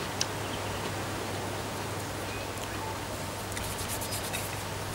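Steady background hiss with a low hum, broken by a few faint clicks and light rustling.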